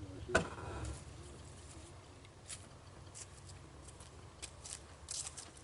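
Faint scattered clicks and rustles, with one sharper short knock about a third of a second in.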